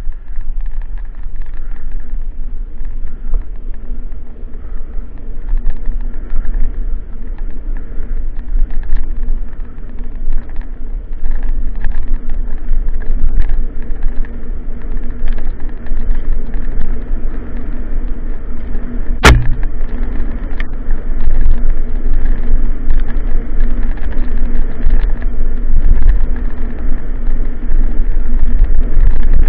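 A mountain bike running fast down a rutted dirt forest trail, with steady tyre rumble, rattle and wind noise on the camera microphone. One sharp knock comes about two-thirds of the way through.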